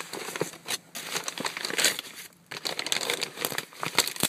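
A plastic mailer bag crinkling in irregular bursts as a key is worked into it to tear it open.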